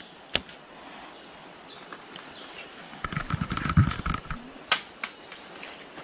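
Steady high-pitched drone of rainforest insects, with a single click near the start and a brief rustling crackle about three seconds in.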